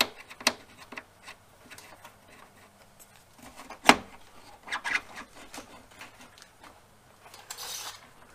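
Hands working the wire-feed drive and gun-cable connector of a Hobart MIG welder: scattered clicks and knocks of metal and plastic parts being handled, the loudest a sharp knock about four seconds in. There is a short scraping rustle near the end as the cable is moved.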